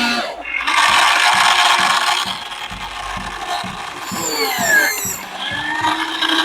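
Small electric gear motors of an RC excavator whirring with a fast ratcheting clatter, then a falling whine about four seconds in, and a steady hum near the end.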